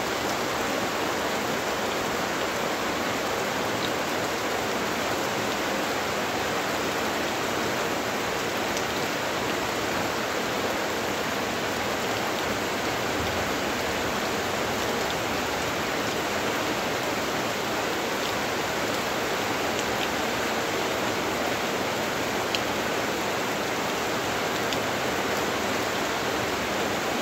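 Steady monsoon rain falling on leaves and young maize plants: an even, unbroken hiss with a few faint ticks now and then.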